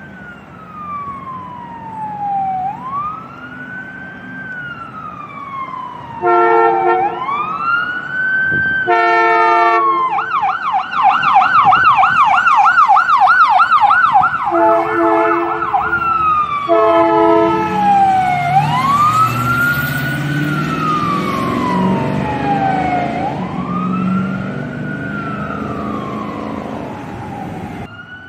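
Ambulance siren on a slow wail that rises and falls every four seconds or so, switching to a fast yelp for about five seconds in the middle, with four short horn blasts around it. The ambulance's engine rumbles by as it passes, and the siren goes back to the slow wail.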